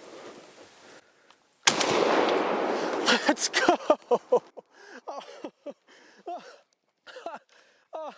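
A single shotgun blast at a wild turkey gobbler about two seconds in, its report rolling on for about a second. It is followed by a run of short, falling-pitched cries.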